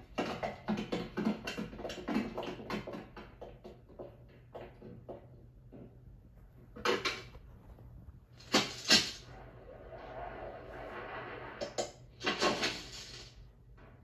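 Film sound effects through a TV speaker: a quick patter of children's footsteps and bustle on a wooden floor, then several loud sharp thumps with a rushing noise between them.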